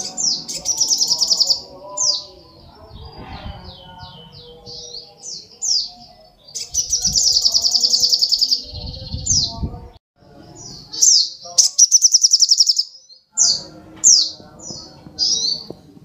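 Male olive-backed sunbird (sogok ontong) singing: high, fast buzzy trills three times, with runs of short, sharp downslurred chirps between them.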